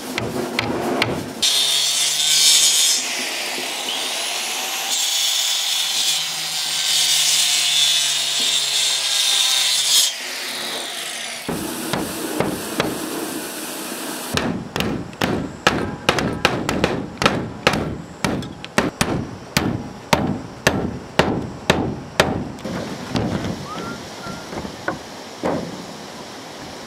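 Work on timber: a power tool runs with a steady high hiss for about eight seconds. After a pause comes a steady run of about twenty sharp strokes on wood, two or three a second.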